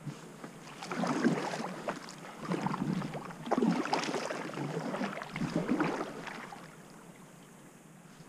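Kayak paddle strokes splashing and swirling through calm lake water, four strokes about a second and a half apart, dying away near the end.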